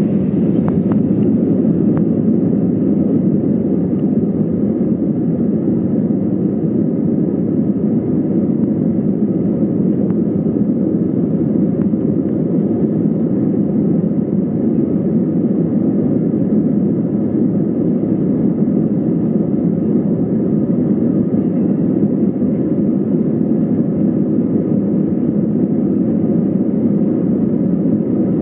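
Steady low rumble inside the cabin of an Airbus A320 as it taxis, with engine and rolling noise holding an even level and not yet building toward takeoff power.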